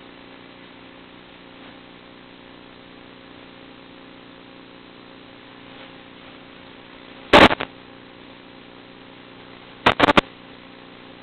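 Steady hiss and hum of an analog FPV video link's audio channel, broken twice by short, loud crackles of static, about seven and ten seconds in. The second crackle comes as the radio link breaks up and the video picture dissolves into interference.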